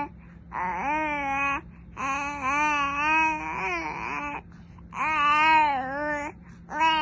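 Young baby vocalising in about four long, drawn-out calls with a wavering pitch and short breaks between them.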